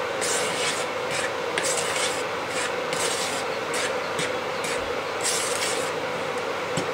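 Flour dough being worked by hand in the bowl or on the board: irregular rubbing, scraping strokes, about one to two a second, over a steady background hum.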